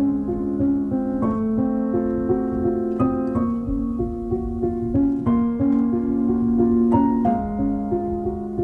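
Background piano music: a gentle melody of notes struck every half second or so over sustained lower notes.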